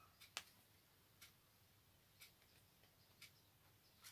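Near silence: quiet room tone with faint ticks about once a second and one slightly louder click less than half a second in.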